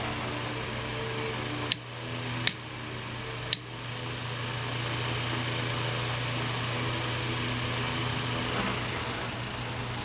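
Small two-speed table fan with an oversized motor running: a steady rush of air over a low motor hum. Three sharp clicks come in the first few seconds as the fan is handled, and soon after, the fan grows gradually louder before settling.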